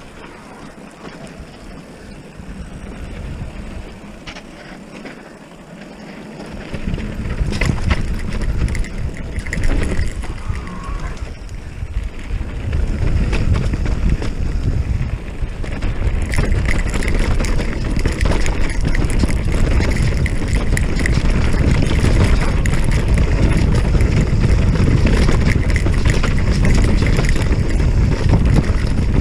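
Wind buffeting the microphone over the rumble and rattle of an electric mountain bike rolling over a rocky dirt trail, with scattered clicks. It starts fairly quiet and gets much louder about seven seconds in as speed picks up.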